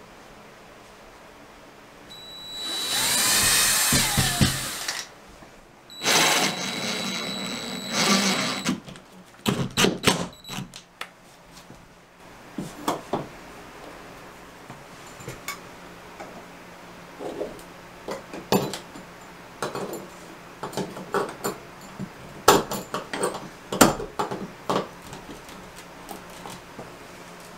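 Cordless drill running in two bursts, speeding up and slowing with the trigger as it drives screws into the wall. Then a scatter of light clicks and knocks as metal towel-bar hardware is handled and fitted.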